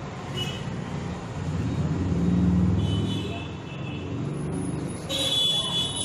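Hermetic refrigerator compressor running on a fresh R134a charge, a steady low hum that swells a little about two to three seconds in.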